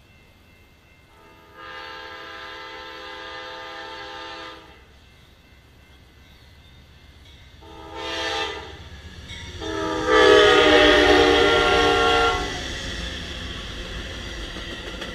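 Diesel passenger locomotive's multi-tone air horn sounding three blasts: a long one, a short one, then a longer, louder one as it comes close. The rumble of the locomotive and passenger cars rolling past follows after the last blast.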